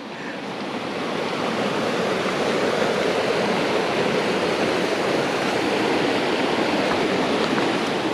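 Mountain creek water running steadily over rocks, a continuous rushing that swells a little over the first second and then holds even.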